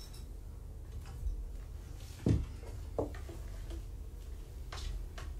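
A kitten scratching and covering in a litter box: a few light knocks and short scratches, with a soft thump about two seconds in.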